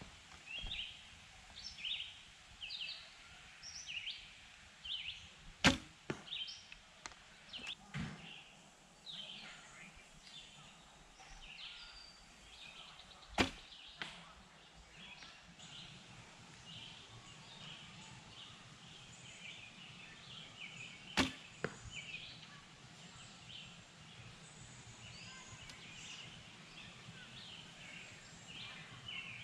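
Small birds chirping on and off, with three sharp arrow shots about eight seconds apart, the first about six seconds in.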